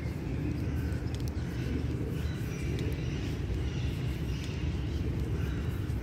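Steady low rumble of distant city traffic, with faint bird chirps scattered over it.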